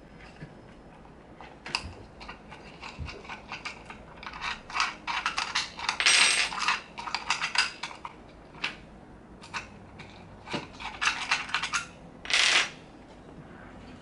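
Camera accessories and small mounting hardware being handled close to the microphone: a run of light clicks and taps of metal and plastic, with two brief scraping sounds, about six seconds in and near the end.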